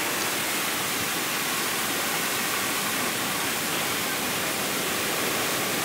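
Steady rushing of Alamere Falls, a waterfall pouring down a coastal cliff onto the beach.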